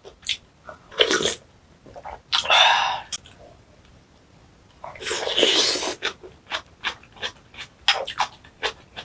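Close-miked eating sounds: a few noisy slurps, the loudest a little after halfway, then quick, wet chewing clicks as she eats soft cabbage and rice.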